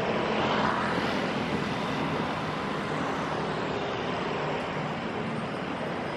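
Street traffic: motorbikes and cars running along a city road, a steady hiss of tyres and engines that swells as traffic passes about a second in, then eases off.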